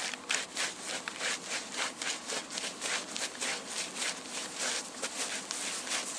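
Quick, steady footsteps, about four a second.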